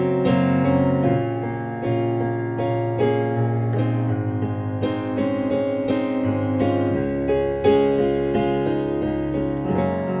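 Background music: a keyboard instrument striking notes in a steady run over held low notes.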